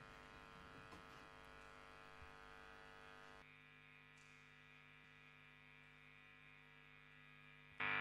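Faint, steady electrical hum and buzz from the stage amplifiers, one low tone with many overtones. A higher hiss above it drops away about three and a half seconds in.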